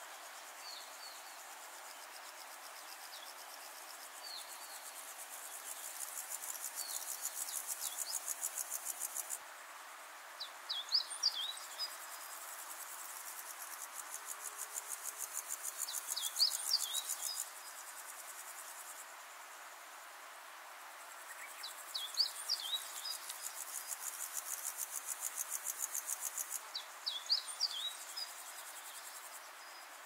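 Nature-sound recording: an insect chirring in rapid even pulses, in bouts of several seconds that start and stop, with short high bird chirps in quick clusters of a few notes between them.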